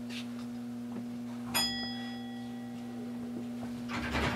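Steady electrical hum of a stopped electric commuter train. About a second and a half in, a single bell-like ding rings out and fades, and there is a short burst of noise near the end.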